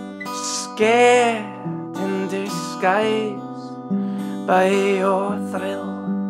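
Live solo song: a steel-string acoustic guitar playing sustained chords, with a male voice singing held, wavering notes over it several times.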